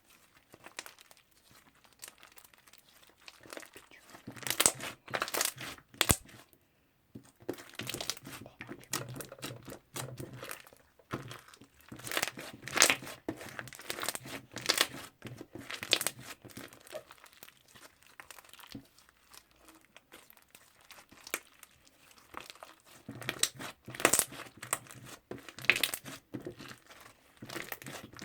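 Toffee slime being squished and pulled by hand, making irregular sticky crackling and clicking in bursts, with a few quieter pauses between handlings.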